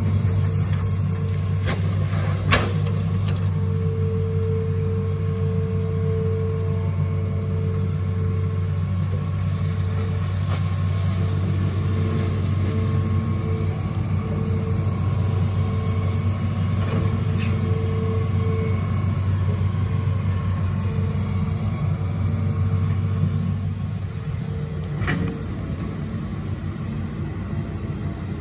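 Hitachi ZX210 amphibious excavator's diesel engine running steadily under working load, with a hydraulic whine that comes and goes as the boom and bucket move. There is a sharp knock about two and a half seconds in and another near the end, where the engine note eases slightly.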